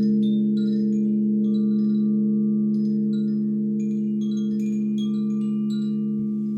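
Singing bowls holding a steady, low, layered drone, with chimes tinkling in scattered short high notes over it.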